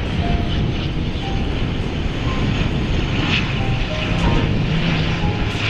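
Steady drone of an ATR 72-600's two turboprop engines and propellers as the airliner descends on final approach.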